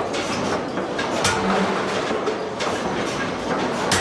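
Air hammer hot-forging a red-hot steel flange ring, striking down on a flat hand-held tool laid on the ring: a few heavy metallic blows over the hammer's steady mechanical rumble.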